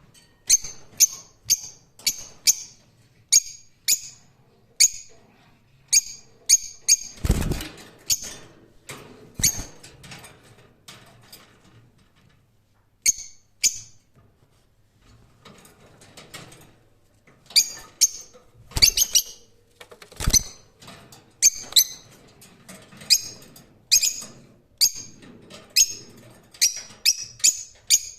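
Lovebirds giving short, sharp, high-pitched chirps in quick irregular series, falling silent for a second or two twice midway. A few dull thumps sound among the chirps, the clearest about seven seconds in.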